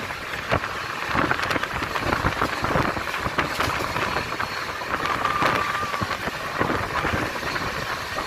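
Wind rush and rattling of a fast-moving vehicle heard at an open window, with a short high steady tone a little past halfway.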